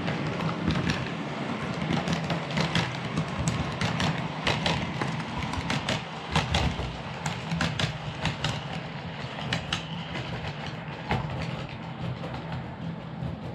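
OO gauge model of an LNER Azuma train running past on the track: a steady motor hum with the wheels clicking over the rail joints, the clicks thinning out near the end as the train clears.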